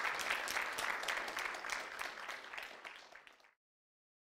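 Audience applauding after a talk: a dense patter of many hands clapping. It thins out, then cuts off suddenly to silence about three and a half seconds in.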